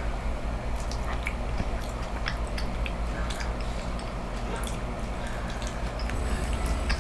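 Close-miked eating: a person chewing a taco, with many small scattered wet clicks and smacks over a steady low hum.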